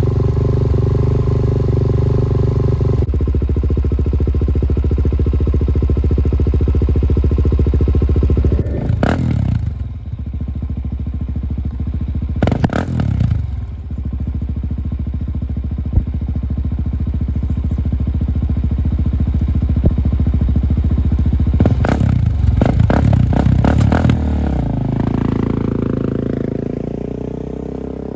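Suzuki DR-Z400SM single-cylinder four-stroke motorcycle engine running at idle, with a few quick throttle blips about a third of the way in and a burst of several more blips later on. Near the end the engine note climbs steadily in pitch as it grows quieter.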